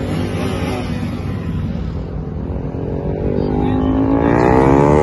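Motorcycle engine running, then revving up with a steady rise in pitch and loudness over the last second and a half.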